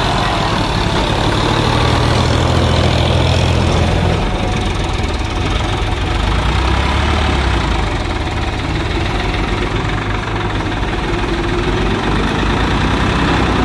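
Diesel farm tractor engines idling and running at low speed, a steady drone whose pitch shifts down about four seconds in.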